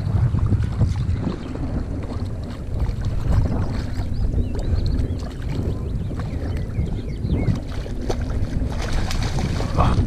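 Wind buffeting the microphone in a steady low rumble, with water splashing as a hooked fish thrashes at the surface in shallow water and the landing net is dipped in.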